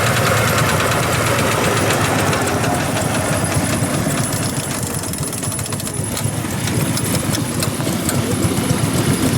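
Engine running steadily at idle with a fast, knocking beat, easing off slightly midway and picking up again near the end.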